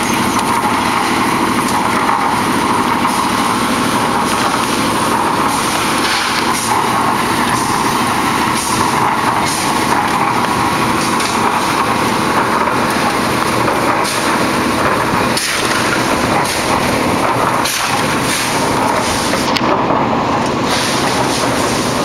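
Concrete mixer engine running steadily while a roof slab is being poured, with a few faint knocks.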